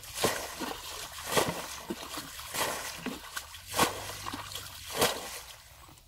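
Muddy pond water being bailed out with a plastic bucket: a slosh and splash about every second and a bit, five in all, with water trickling between.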